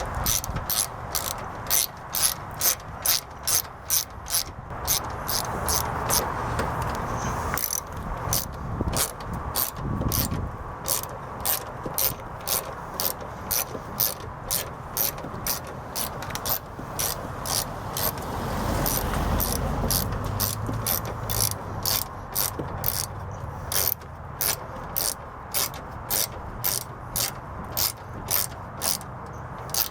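Ratchet wrench clicking steadily as it tightens the screw that holds the headlight assembly in, about two clicks a second.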